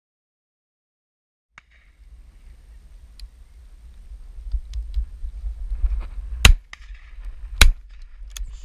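A 20-bore over-and-under shotgun, a Beretta Silver Pigeon, fired twice about a second apart, over low wind rumble on the microphone that builds after a moment of silence.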